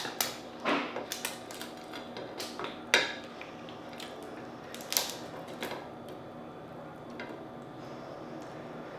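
Cooked Dungeness crab shell cracking and snapping as the body is pulled apart by hand to get at the meat: a series of sharp cracks, the loudest about three seconds in, thinning out after about six seconds, over a steady low background hum.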